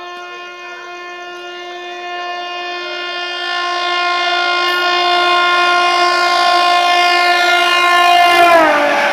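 Indian Railways electric locomotive sounding one long, steady horn note as it approaches at speed, growing louder. Near the end the horn's pitch drops sharply as the locomotive passes, and the rush of the train running through rises.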